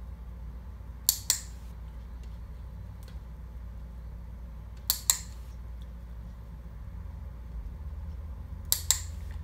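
A dog-training box clicker clicked three times, about four seconds apart. Each is a sharp double click from press and release, marking the puppy's behaviour for a treat.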